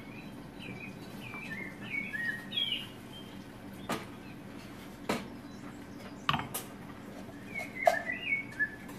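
Small birds chirping in short, curling phrases, in two spells, heard as recorded birdsong in the bar. A few sharp clinks and knocks of bottles and glassware come between them as a drink is poured.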